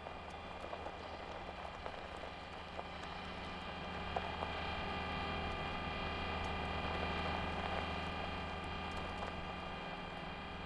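Steady mechanical whirring hum with several held tones, a sound effect for the animated Curiosity rover driving. It grows a little louder midway and then eases off.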